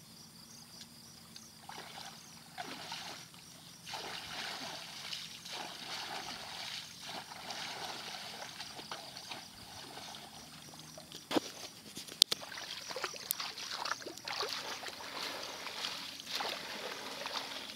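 Shallow muddy water splashing and sloshing as people wade through a flooded grassy field and scoop woven fishing baskets through it, in uneven swells. A couple of sharp knocks come a little past the middle.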